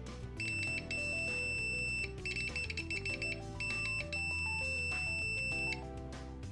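BTMETER BT-570C clamp meter's continuity beeper sounding: a high-pitched steady beep for about a second and a half, then about a second of rapid stuttering beeps, then steady again for about two seconds before it stops. Soft background music runs underneath.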